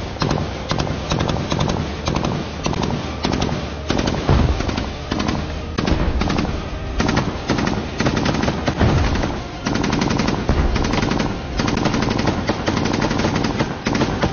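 Sustained close-range automatic rifle fire from several weapons: rapid shots overlapping in long bursts with hardly a pause.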